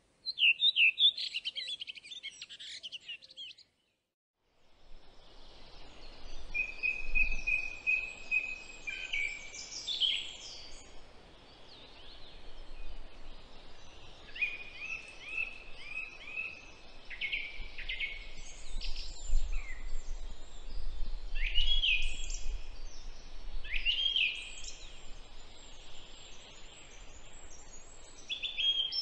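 Small songbirds singing in the trees around the nest: short repeated whistled phrases and trills from several birds, over a low rumble. The sound cuts out for about a second near the start.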